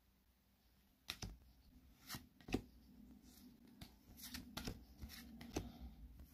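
Pokémon trading cards being handled and flipped through: faint, scattered slides and flicks of card against card, starting about a second in.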